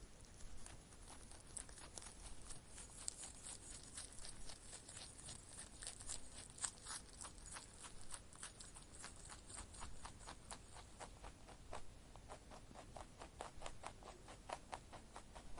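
A rabbit making a long, faint run of quick irregular crunching clicks, several a second, like a rabbit chewing dry food.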